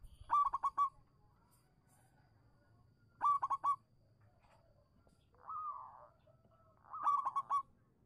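Zebra dove (perkutut) singing: three quick bursts of staccato coos, each about four rapid notes, a few seconds apart, with a softer, drawn-out coo between the second and third.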